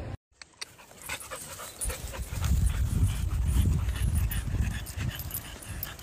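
A dog panting and grumbling in quick, rhythmic low pulses, following a brief dropout at the start.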